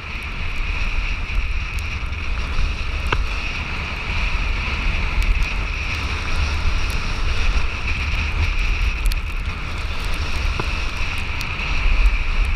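Wind rushing over the microphone of a camera moving fast down a snowy slope, a steady low rumble, with a steady hiss of snow under the rider.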